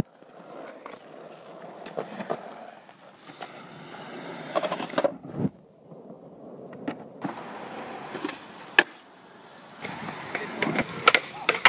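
Skateboard wheels rolling over concrete, with scattered clacks of the board against the ground. A deck slides along a concrete ledge, followed by one sharp loud smack about nine seconds in and a run of quick clacks near the end.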